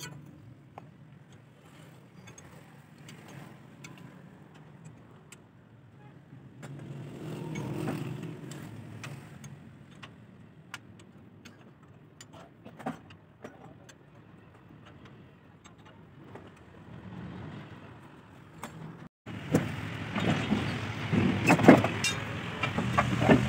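Scattered metal clinks and knocks from hand tools on the opened rear axle housing of a Massey Ferguson 135 tractor, over a steady low engine hum. After a brief break about 19 seconds in, the hum and the clinks are louder.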